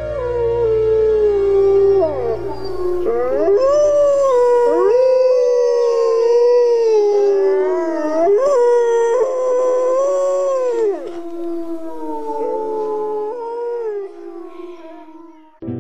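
Wolves howling in chorus: several long howls overlap, sliding up and down in pitch. A low music drone runs under them for the first few seconds and stops, and the howls thin out near the end.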